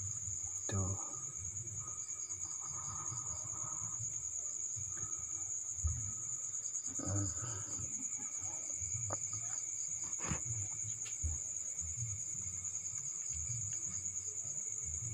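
Crickets chirping in a steady, high, pulsing trill, with a few short knocks and rustles now and then.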